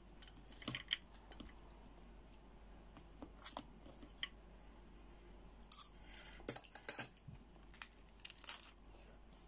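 Metal spoon scraping and clicking against the shell of a cooked brown crab while scooping out meat and roe: scattered short scrapes and clicks, busiest a little past the middle. Near the end comes a brief crisp rustle of a cabbage leaf being torn off.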